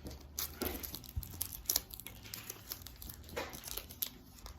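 Foil wrapper of a Pokémon booster pack being torn open and crinkled by hand: irregular crackling rustles.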